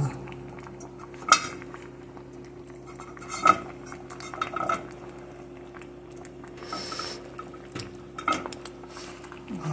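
Sharp clinks and knocks of kitchen items against a pot of soup on the stove, three louder ones about a second in, about three and a half seconds in and near the end, with a few lighter clinks between, over a steady low hum.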